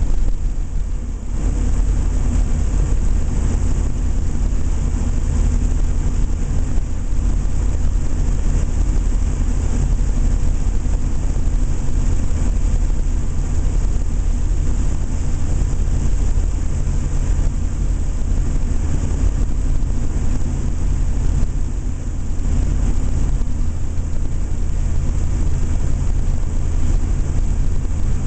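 7.3-litre turbo-diesel V8 running steadily under way, with a deep rumble and the turbo whistling over it; the level dips briefly about a second in.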